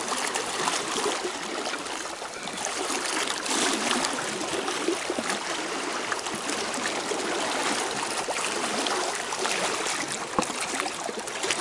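Reservoir water churning gently at the shore: small waves lapping and splashing in a steady, irregular wash.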